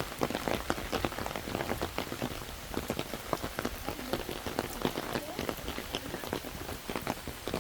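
Rain pattering: many irregular, sharp drops hitting a surface.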